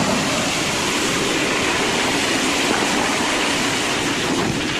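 Crushed ice being loaded from an ice crusher into a fishing boat's ice hold: a steady, loud rushing noise like pouring water.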